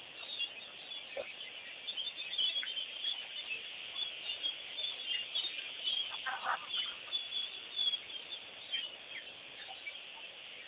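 Wild birds chirping continuously in many short, high calls, with a louder, lower call about six and a half seconds in.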